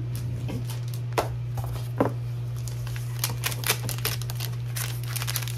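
Clear plastic sleeve and paper sticker sheets being handled: a scatter of light clicks and crinkles, thickest about three seconds in, over a steady low hum.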